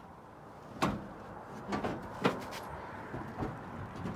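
Bench seat being shoved and wrestled loose inside a Datsun 620 pickup cab: a handful of knocks and bumps as it shifts against the floor and cab, the loudest about two seconds in.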